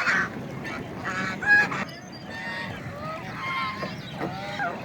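White domestic ducks quacking, a scatter of short calls with the loudest about one and a half seconds in.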